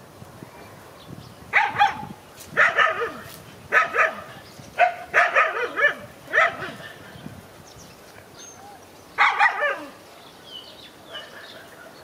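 Dogs barking in short bouts, about six of them, with a pause of a couple of seconds after the fifth.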